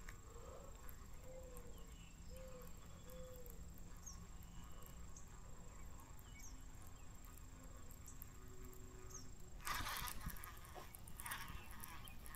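Faint outdoor ambience with a steady high insect drone and soft chirps, plus a few soft low calls in the first three seconds. About ten seconds in, a brief louder rushing noise, followed by a shorter one a second and a half later.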